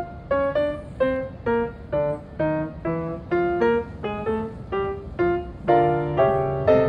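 Background piano music: a melody of single notes struck about twice a second, each dying away, with fuller chords near the end.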